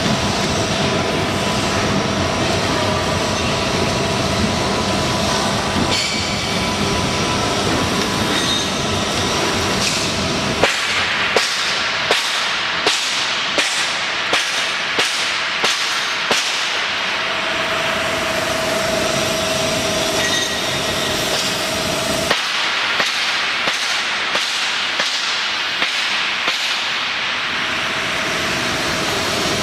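Fish meal mixer and factory machinery running with a loud, steady noise and a faint steady whine. For a long stretch in the middle, the low rumble drops away and sharp knocks come at an even pace, about three every two seconds.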